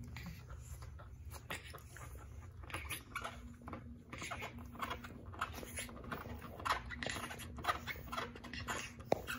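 Black pug puppy feeding at a bowl: a run of small, irregular clicks and smacks.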